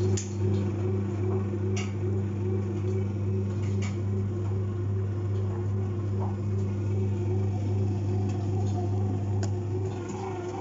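Tower digital bread maker's motor running with a steady hum, kneading the dough at the start of a bread cycle, with a few light clicks. The hum eases slightly near the end.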